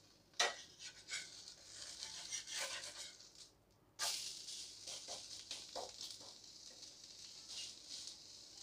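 Steel spatula scraping under a dosa on a dosa tawa to loosen and flip it. About four seconds in, a steady sizzle starts as the onion-topped side lands on the hot pan, with a few spatula taps and presses over it.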